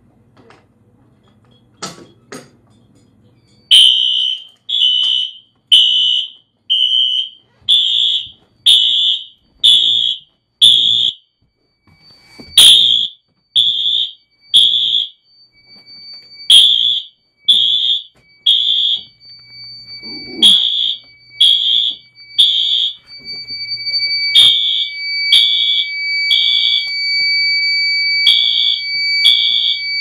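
A pull station clicks twice as it is operated, then fire alarm horns sound loud pulses about once a second. From about 12 s in the horns fall into groups of three with short pauses between, the temporal-three evacuation pattern. Steady high-pitched tones from another sounder come in under them.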